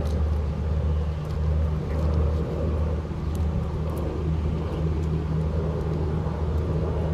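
A steady, loud, low engine-like hum runs throughout. Faint scattered clicks of eggshell are heard as an egg is peeled by hand.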